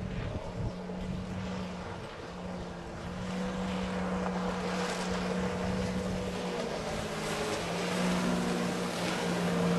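Small watercraft engine running steadily over wind and water noise, growing gradually louder. A second, slightly lower engine tone joins near the end.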